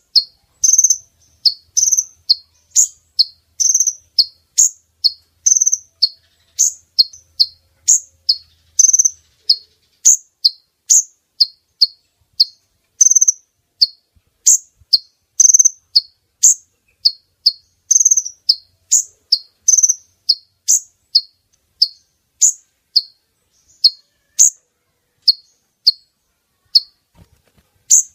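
Recorded call of a female kolibri ninja sunbird, played as a lure for males: short, high, sharp chirps repeated about twice a second in a steady run.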